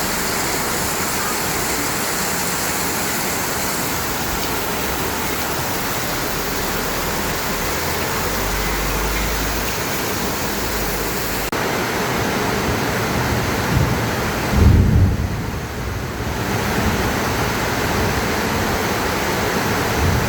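Heavy rain pouring down steadily, with a brief deep rumble about 15 seconds in.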